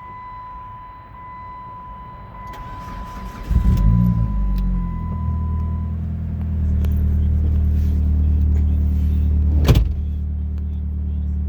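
A 2005 Chrysler PT Cruiser's four-cylinder engine cranks and catches a few seconds in, then settles into a steady cold-start idle. A steady high electronic tone stops about halfway through, and there is one sharp knock near the end.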